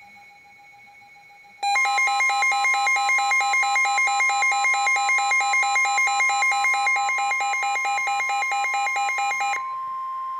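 Midland NOAA weather alert radio sounding its tornado warning alarm. After a faint steady tone, a loud warbling beep of about four pulses a second comes in over a steady single tone, about a second and a half in. Near the end the warble stops and the steady tone carries on alone for a moment.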